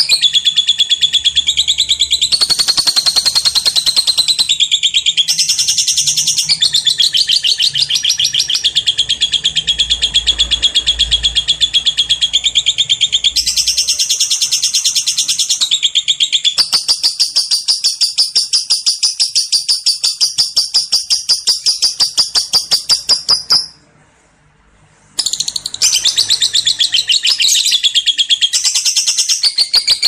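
Lovebird ngekek: a long, very rapid, high chattering trill that runs almost without a break. It stops once for about a second, around three-quarters of the way through, then resumes.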